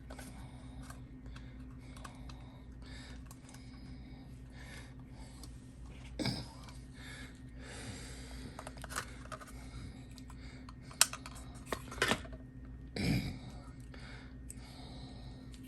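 Scattered light clicks and taps of small plastic model parts and tools being handled, over a steady electrical hum. There are a few louder knocks, about six seconds in and again between eleven and thirteen seconds.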